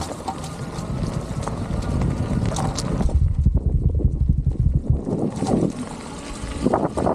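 Wind buffeting the microphone over the low rumble of e-bike tyres rolling on a leaf-covered gravel trail, with scattered small ticks in the first few seconds. The rumble swells for a couple of seconds in the middle.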